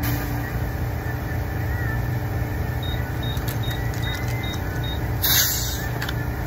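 Gas-station air compressor running steadily while a car tyre is inflated through a coiled hose. About five seconds in, a short loud hiss of air as the chuck comes off the tyre valve.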